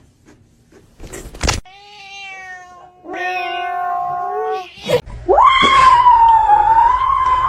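Domestic cat meowing: two drawn-out meows, then a longer, louder yowl that rises at its start and wavers as it is held. A brief rustling noise comes about a second in.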